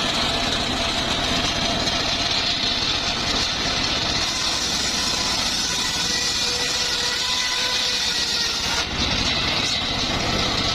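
Circular saw machinery running steadily and loudly, a constant motor drone with a faint whine that drifts a little in pitch.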